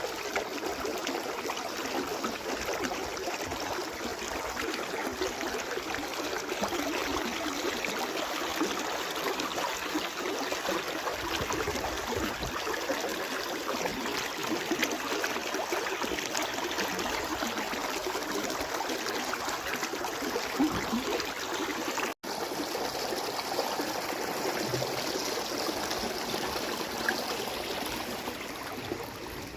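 Water surging up from below and sinking back, making a steady roar of rushing, churning water. A split-second dropout cuts it about two thirds of the way through.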